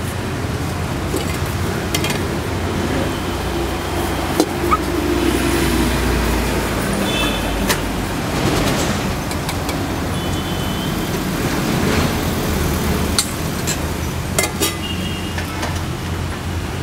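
Steady road traffic noise, a low rumble of passing vehicles, with a few sharp clicks and some short high tones scattered through it.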